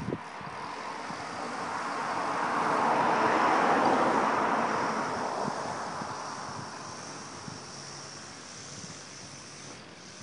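A vehicle passing by, its sound swelling to a peak about four seconds in and then fading away.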